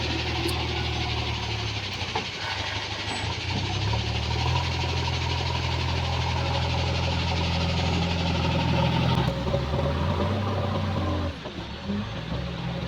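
JCB 3DX backhoe loader's diesel engine running steadily, its note shifting several times as the load on it changes, with a short drop in loudness near the end.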